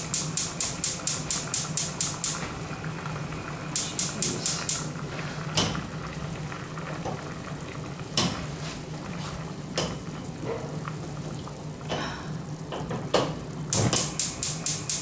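Rice being worked in a container in quick, rhythmic scraping strokes, about four or five a second, in three bursts. A few sharp clinks of kitchen utensils come in between, over a steady low hum.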